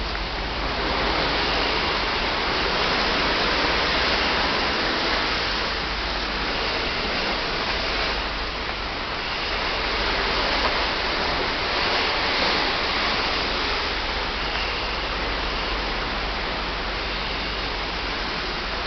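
Steady rushing of wind and sea on a cruise ship's open promenade deck, with a low rumble underneath, swelling and easing slowly.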